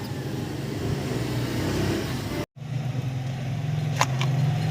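Suzuki Multicab running, a steady low drone that breaks off for a moment about halfway through and comes back louder, with a sharp click near the end.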